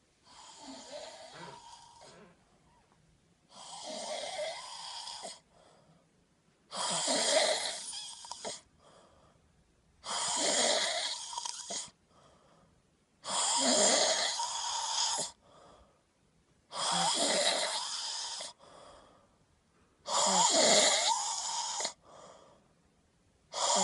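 A sleeping person snoring in a steady rhythm, one snore roughly every three seconds, each lasting about a second and a half to two seconds; the first two snores are fainter than the rest.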